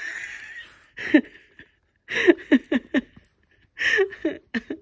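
Soft, breathy chuckling: a few short bursts of laughter, with a quick run of 'ha-ha' pulses about two seconds in.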